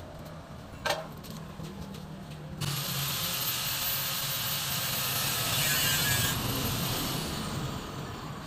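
A sharp knock about a second in, then a handheld power tool runs for about four seconds with a high whine and winds down near the end as it is switched off.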